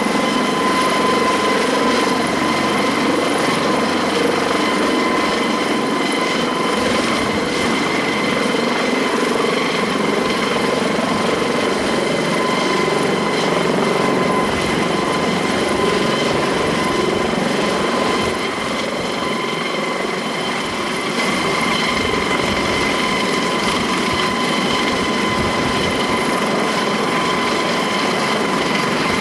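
Eurocopter AS365 Dauphin twin-turboshaft helicopter running steadily, a high turbine whine over rotor and engine noise, dipping slightly in loudness about two-thirds of the way through.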